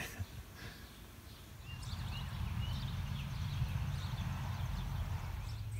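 Outdoor ambience: a steady low rumble that comes in about two seconds in, with a few faint, short bird chirps.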